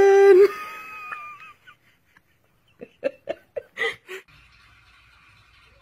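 A small toy horn held at a baby's mouth sounds one steady note for about half a second at the start, then a string of short laughs follows about three seconds in.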